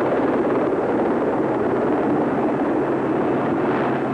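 Westland Sea King HAR3 rescue helicopter flying low nearby: loud, steady rotor and turbine engine noise.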